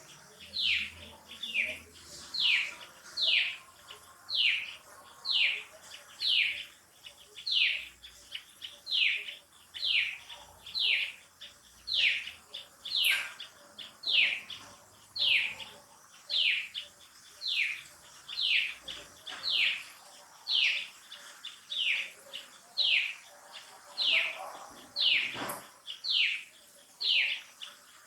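Baby macaque crying: a long series of short high-pitched calls, each falling in pitch, repeated at an even pace of a little more than one a second.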